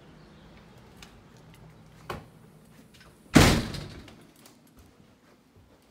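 A door shutting: a light click about two seconds in, then a loud thud a little later that dies away quickly.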